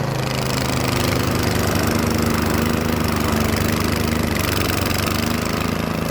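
Snow thrower engine running steadily while clearing heavy wet snow.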